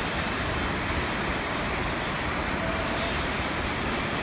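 Steady rushing of a mountain creek mixed with a narrow-gauge steam locomotive running toward the listener along the track.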